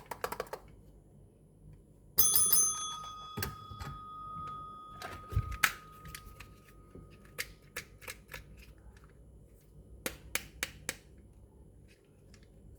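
Clicks and taps of small plastic toy parts and packaging being handled. About two seconds in, a bell-like ringing tone starts suddenly and fades out over several seconds, while the tapping goes on.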